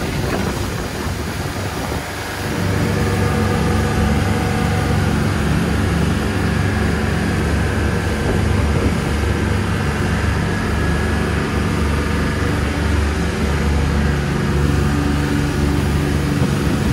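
Sunseeker Portofino 34 motor cruiser running at speed: a steady engine drone under the rush of water along the hull. About two seconds in, the engine hum grows louder and clearer.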